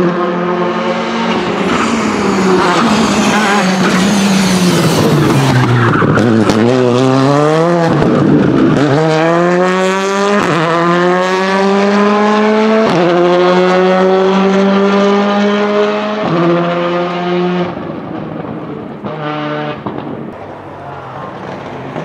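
Skoda Fabia rally car's turbocharged four-cylinder engine coming off the throttle, its note falling, then rising and falling quickly several times through a corner. It then accelerates hard, pitch climbing through three upshifts, and fades away. A second rally car is heard briefly near the end.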